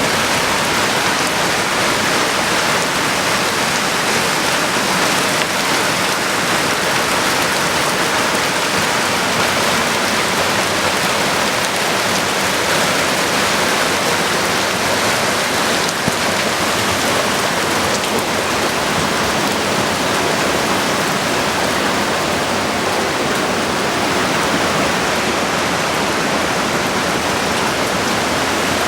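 Heavy rain from a flash-flood thunderstorm, falling in a loud, steady hiss.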